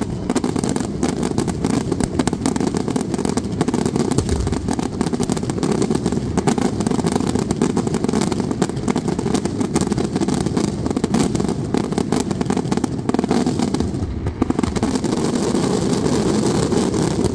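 Fireworks barrage: a dense, unbroken roll of rapid bangs over a heavy continuous rumble, with no pause between the reports.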